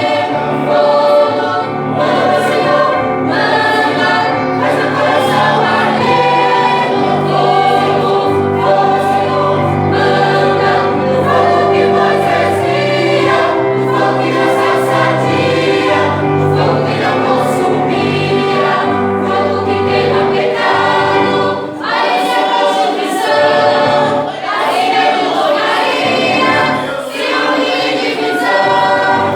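Choir singing a Christian worship song. The low sustained notes underneath drop away about 22 seconds in, leaving the voices more on their own.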